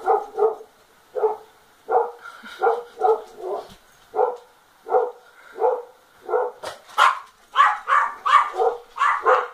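Dog barking over and over in short, quick barks, about two or three a second, louder and faster for the last couple of seconds.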